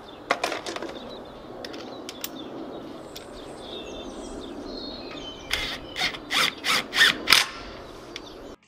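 Hand socket ratchet working wheel bolts: a few metal clinks near the start, then a run of about seven quick ratcheting strokes, roughly three a second, over outdoor ambience with birds chirping.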